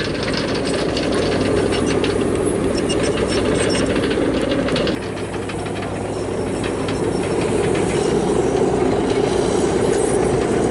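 Steady buzzing drone of a Balinese kite's bow-shaped hummer (guwangan) vibrating in the wind as the kite flies. It dips slightly about halfway through.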